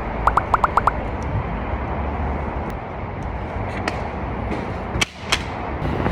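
Outdoor ambience dominated by a steady low rumble of wind on the microphone, with a quick run of about six short, high chirping beeps in the first second and a sharp click about five seconds in.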